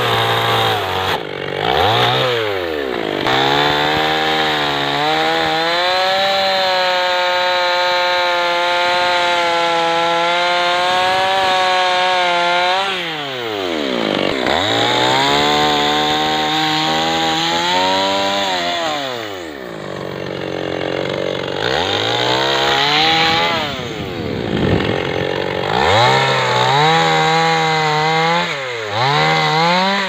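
Small petrol chainsaw cutting through tree branches, its two-stroke engine held at high revs during each cut and repeatedly dropping back toward idle and revving up again between cuts.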